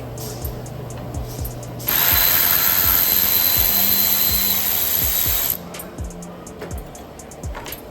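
A power tool runs in one continuous burst of about three and a half seconds, starting about two seconds in, with a hissing, even sound and a faint steady whine. Background music with a steady beat plays throughout.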